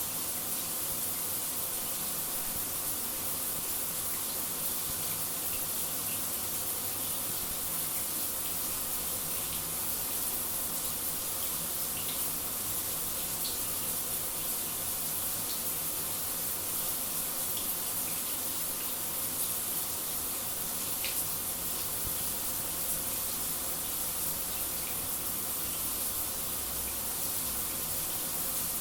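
Shower running steadily: an even hiss of falling water, strongest in the high frequencies, with a few faint ticks scattered through it.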